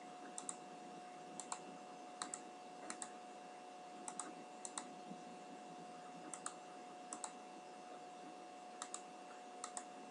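Computer keyboard keystrokes: about a dozen short clicks at uneven intervals, many heard as quick double clicks of key press and release. A faint steady electrical hum runs underneath.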